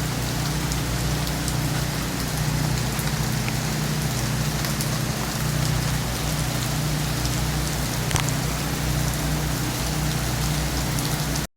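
Rain falling steadily, with scattered drop impacts over a constant hiss and a steady low hum beneath it. It cuts off suddenly near the end.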